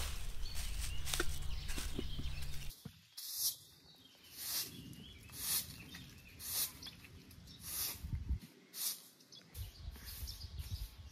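Plastic cling film crinkling as it is smoothed over a steel bowl. Then a straw broom sweeping brick paving in regular swishes about once a second, with birds chirping.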